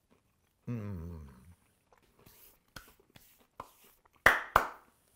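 A man's appreciative 'mmm' with falling pitch while tasting food, followed by faint mouth clicks and two sharp smacks about a third of a second apart near the end.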